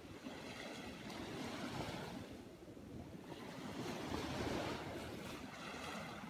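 Small ocean waves breaking and washing up the sand, with some wind on the microphone. The surf swells louder about four seconds in.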